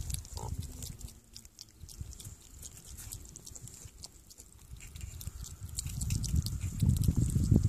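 Meerkat eating wet cat food from an opened tin: small wet clicks and smacks of chewing and biting. A low rumble, louder at the start and again near the end, runs underneath.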